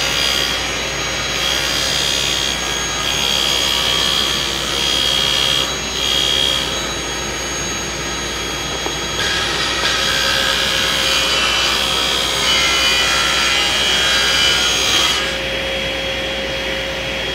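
SawStop table saw running and ripping 3/4-inch plywood into strips, several passes in a row. Its steady whine swells and eases as each cut goes through.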